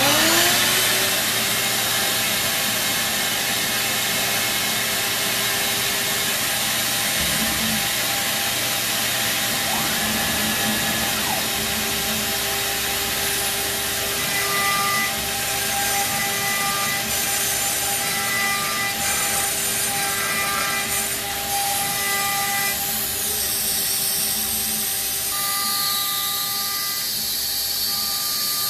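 CNC router spindle and vacuum hold-down switched on together, the spindle winding up in pitch in the first second, then running with a steady loud hiss. From midway, short steady whining tones come and go as the machine's axis drives move the head. Near the end the router bit cuts into the MDF, boring a hole.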